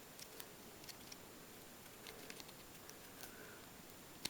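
Faint, scattered small clicks and taps from handling the paper-and-wire parts of a model pistol as the magazine release is fitted, over near-silent room tone.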